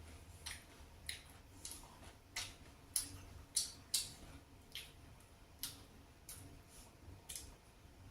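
Close-up eating sounds from chewing a bite of crispy fried chicken wing: short, sharp mouth clicks and smacks at irregular intervals, about one or two a second, loudest around the middle.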